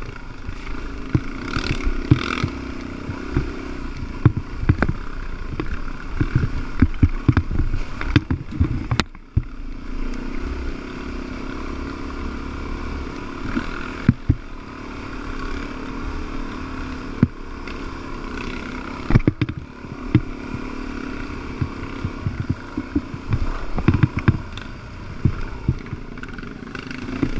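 Dirt bike engine running as the bike rides a rough, rutted trail, with frequent sharp knocks and rattles from the bumps. The engine note drops off briefly about nine seconds in, then picks up again.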